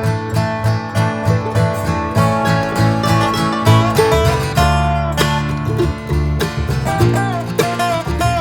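Background music: upbeat acoustic bluegrass-style tune with strummed and picked guitar, plucked string notes in a quick steady rhythm.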